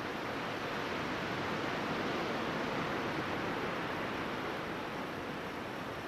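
Ocean surf washing up a beach, a steady even rush with no distinct wave breaks.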